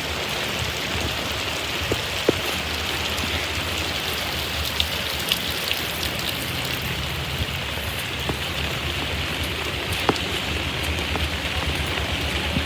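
Steady rain falling, with scattered drops ticking close by and a low steady hum underneath.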